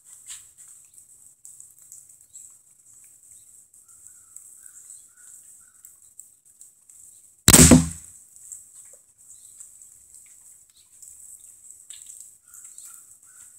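Crosman 1377 pump air pistol firing a single shot: one sharp crack about halfway through, with a brief low tail.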